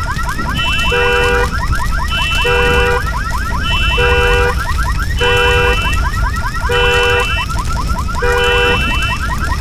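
Looping synthesized alarm-like tones over a deep, steady rumble: a short steady multi-note beep about every 1.2 seconds, alternating with fast warbling sweeps.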